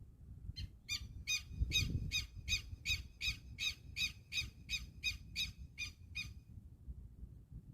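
A bird calling a fast, even series of about seventeen short notes, roughly three a second, that stops about six seconds in. A low rumble runs underneath.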